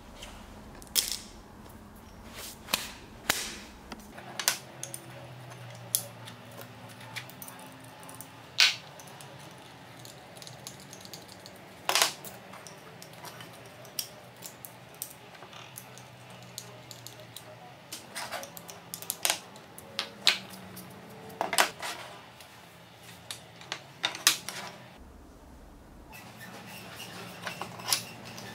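Walnut slats and small metal pins being handled and set down on a wooden workbench: a scattered, irregular series of sharp clicks, taps and knocks, a few of them louder.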